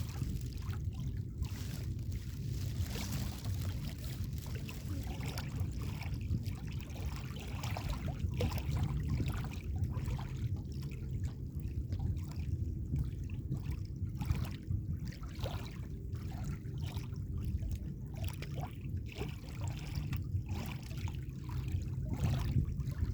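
Small sea waves lapping and splashing against the shore in many short trickling splashes, over a steady low rumble.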